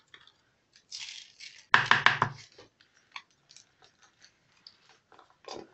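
Coarse salt poured from a spoon onto peeled onions in a plastic bowl: a short hiss about a second in, then a louder crackling spill of grains around two seconds in, followed by scattered small ticks.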